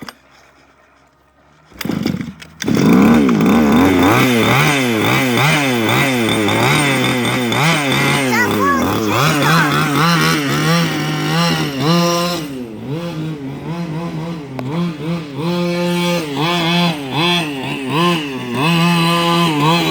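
Small two-stroke weed-whacker engine powering a gas RC car, coming in suddenly about two seconds in. It is revved up and down rapidly, then settles into held high revs broken by repeated throttle dips.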